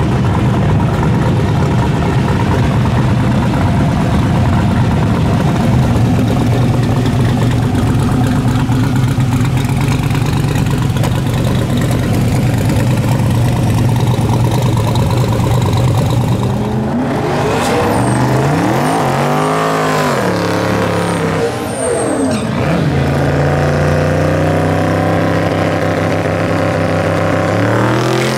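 Drag-race car engine running steadily at a loud idle, then revved up and down several times between about 17 and 23 seconds in, settling back to a steady run before the pitch starts to climb right at the end as the car prepares to launch.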